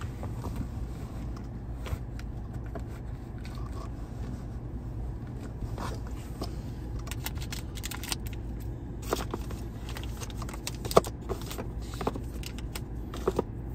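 Small clicks, scrapes and knocks of camera accessories and plastic packaging being handled and sorted, scattered over a steady low hum, with one sharper click about eleven seconds in.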